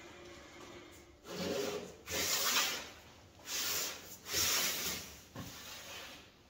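Four rasping strokes of a hand abrasive worked over stainless steel sheet, each under a second long, followed by fainter scraping that dies away.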